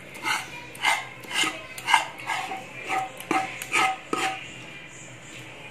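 Steel ladle scraping and knocking against a frying pan while thick Mysore pak mixture is scraped out into a bowl: about nine ringing metal clinks, roughly two a second, which stop a little past four seconds in.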